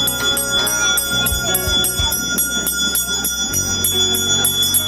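Temple bell rung rapidly and steadily, about five strokes a second, its ringing tone carrying on between strokes, as is done while worship is offered at the shrine.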